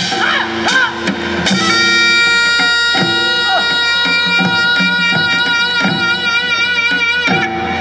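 Korean traditional (gugak) music played live: a wind instrument holds one long, wavering note for about five seconds over repeated drum strokes.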